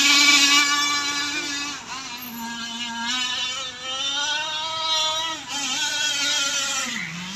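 Radio-controlled racing boats running at full speed: a loud, high buzzing whose pitch rises and falls with the throttle and drops near the end.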